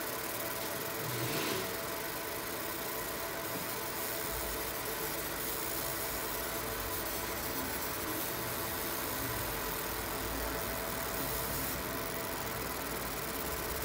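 30 W fiber laser marking machine running a marking job, giving a steady electrical hum with faint steady tones. There is a brief louder swell about a second in, and a low rumble joins about four seconds in.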